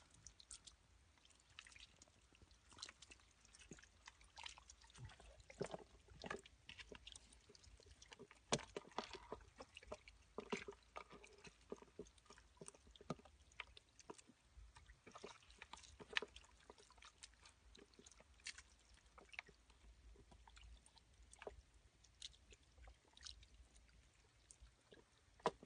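Faint, irregular squelches and clicks of hands groping through wet mud and shallow muddy water.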